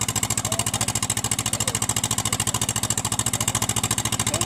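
Diesel engine of a rice combine harvester idling steadily, with a fast, even pulsing throb.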